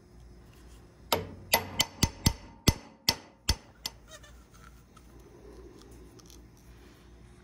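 About nine sharp metal-on-metal hammer taps in quick succession, each ringing briefly, starting about a second in and ending around four seconds in.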